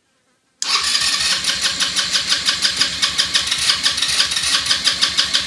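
Elstar 150cc quad bike's single-cylinder four-stroke engine being cranked on its electric starter, starting suddenly about half a second in with a fast, even chugging beat. It keeps turning over without catching, as petrol has yet to come through from the dry tank.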